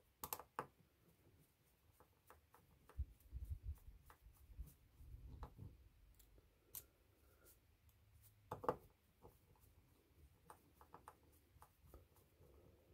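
Faint, scattered small clicks and light taps of a hex driver working small screws into a metal RC differential case, with a couple of sharper clicks about half a second in and near nine seconds.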